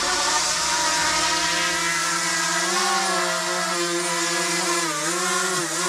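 Quadcopter drone flying overhead, its propellers giving a steady multi-tone whine that dips in pitch and comes back up about five seconds in as the motors change speed.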